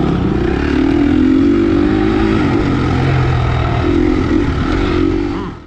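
Motocross bike engine running under throttle while riding, the revs rising and falling as the rider works the throttle.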